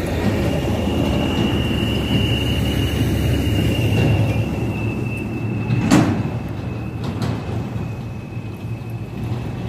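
Heavy road traffic, a bus and a truck, passing close by: a low engine and tyre rumble that swells towards the middle and eases off, with a steady high whine above it. A single sharp click about six seconds in.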